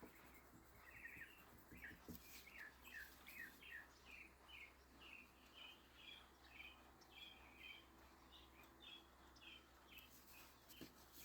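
Faint bird chirping over and over, short falling notes about two a second.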